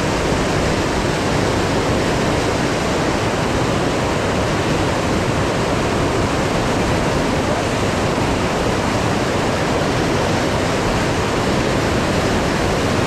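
Steady rush of fast whitewater from a flood-swollen, muddy mountain river running through rapids.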